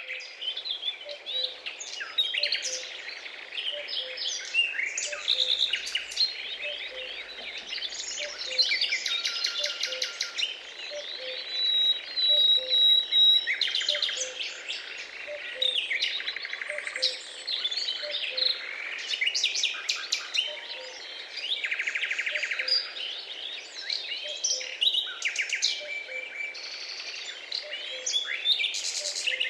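Many small birds chirping, trilling and whistling at once in a dense, overlapping chorus, with a faint low note repeating evenly underneath.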